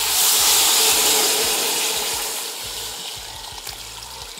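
Water poured from a jug into a metal pressure cooker pot over pieces of seared beef: a steady splashing rush that is loudest at the start and gradually grows quieter.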